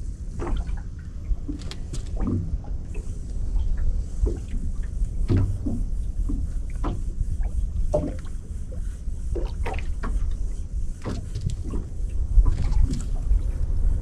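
Water slapping and splashing against the hull of a small boat in irregular knocks, over a steady low rumble of wind on the microphone.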